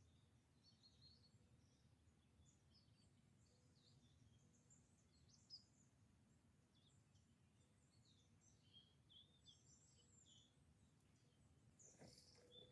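Faint songbird chirps and calls, many short high notes scattered throughout, over a low steady hiss. A brief noise about twelve seconds in.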